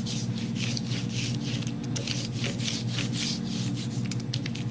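Rubber brayer rolled rapidly back and forth through block printing ink over a contact-paper collagraph plate: a quick series of hissing, rasping strokes, several a second.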